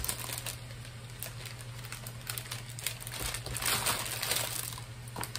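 Clear plastic sleeve crinkling as a magazine is handled and slid out of it, in irregular rustles that are busiest about three to four seconds in.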